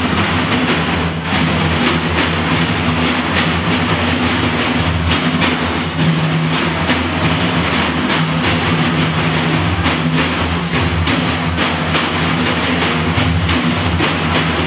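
An ensemble of large frame drums played together by hand in a dense, unbroken rhythm, with deep low drum tones under the strokes.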